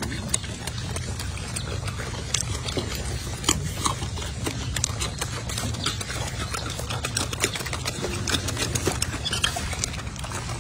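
Golden snub-nosed monkeys chewing apple pieces up close: irregular crunching and smacking clicks over a steady low rumble.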